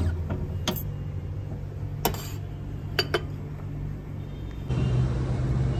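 Ceramic coffee cup and saucer clinking four times as the printed latte is taken from the printer and set on its saucer on a steel counter. A low machine hum cuts off about half a second in, and a steadier hum comes in near the end.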